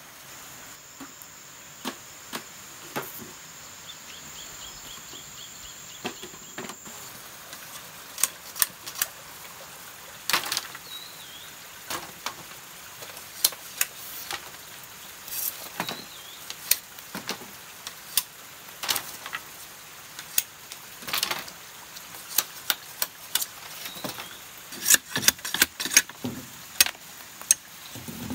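Irregular sharp knocks and clacks of bamboo being chopped and handled by hand, a few seconds apart and coming faster near the end. A steady high insect buzz runs underneath and stops about seven seconds in.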